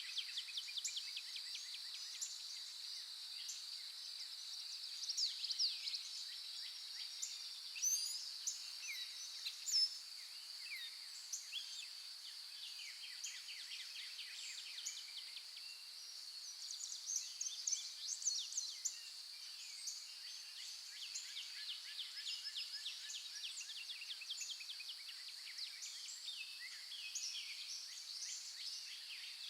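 Dawn chorus of several songbirds: overlapping chirps and fast trills, with a few louder calls around five to ten seconds in. Underneath is a steady high-pitched drone.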